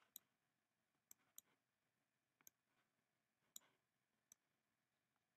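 Faint clicks of a computer pointer being clicked and dragged: about six sharp, short ticks at uneven spacing over near silence.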